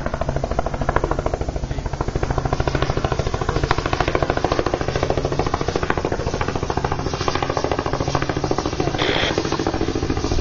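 Air-ambulance helicopter flying in overhead, its main rotor making a fast, steady chopping beat.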